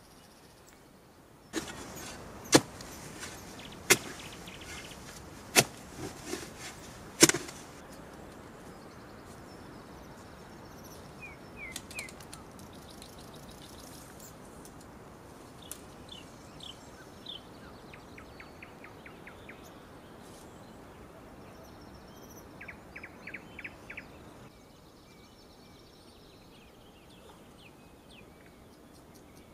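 Four sharp knocks of something being struck, about a second and a half apart, followed by a bird chirping now and then over a quiet outdoor background.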